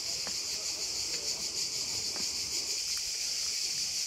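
Steady high-pitched shrilling of a cicada chorus in the surrounding trees, with a few faint footsteps on stone.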